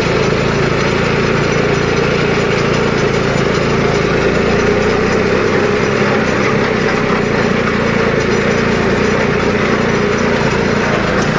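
John Deere 5310 tractor's three-cylinder diesel engine running steadily while the tractor drives along, heard close up from the driver's seat.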